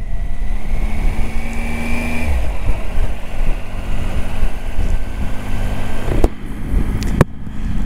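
Adventure motorcycle engine running at low speed on a rough track, with tyre and wind noise. A faint whine rises over the first two seconds and then drops away, and there are two sharp knocks near the end.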